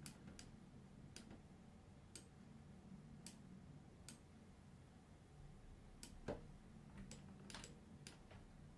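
Faint, scattered clicks of a computer mouse and keyboard, about a dozen in all, coming closer together after about six seconds, over a faint low hum.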